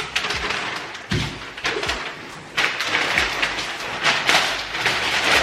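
A gift being opened: irregular rustling and crinkling of wrapping, with a few soft thumps as it is handled.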